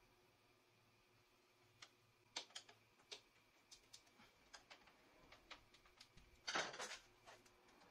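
Near silence with faint, scattered clicks and taps of hands handling a wooden guide jig and its metal rod, and one short, louder handling scrape a little over three-quarters of the way through.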